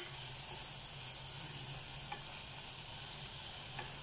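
Longganisa sausages sizzling steadily as they fry in their own rendered fat, no oil added. A spoon stirs them, with two faint clicks against the pot, about two seconds in and near the end.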